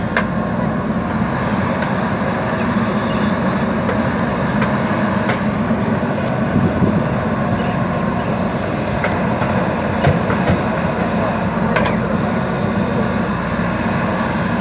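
JCB 3DX backhoe loader's diesel engine running steadily under digging load as the backhoe works soil, with a few sharp knocks scattered through, the loudest about ten seconds in.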